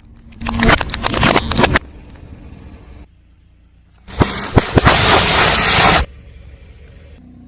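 A car tyre rolling over and crushing crunchy objects: two loud crackling, crunching bursts, the first about half a second in, the second about four seconds in and lasting about two seconds, each cutting off abruptly. A low hum lies under the quieter stretches between them.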